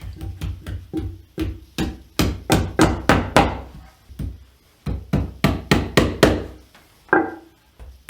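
Hammer driving tacks along the top edge of a recliner's back, in quick strikes of about three a second. There are two runs of blows with a short pause between them.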